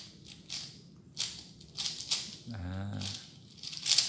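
Plastic 4x4 Rubik's cube being turned quickly by hand: a run of short, irregular plastic clicks and clacks, the loudest near the end. A brief low hum of a man's voice comes a little past halfway.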